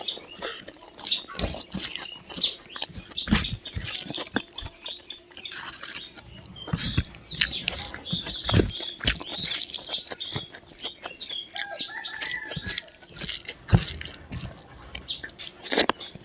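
Close-up chewing of pork and rice: a steady run of wet mouth smacks and clicks.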